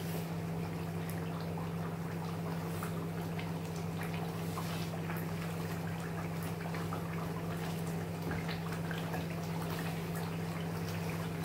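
Thick pepper sauce bubbling in a pot, with many small pops and crackles over a steady low hum.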